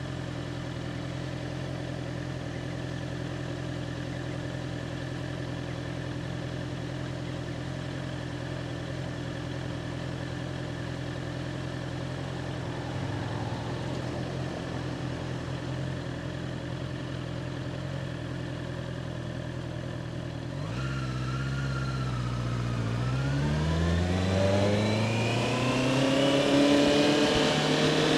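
2021 Honda CBR650R's inline-four engine idling steadily for about twenty seconds, then pulling away, its pitch rising smoothly and growing louder as it accelerates near the end.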